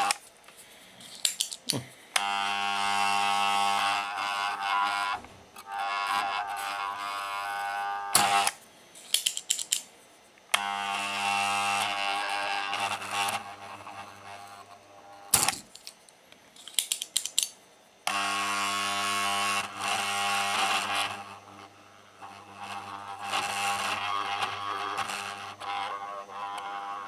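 The electric vacuum pump of a handheld desoldering gun buzzing with a hissing suction in repeated bursts of a few seconds each, with sharp clicks between the bursts, as it sucks molten solder from the pins of a multi-pin capacitor.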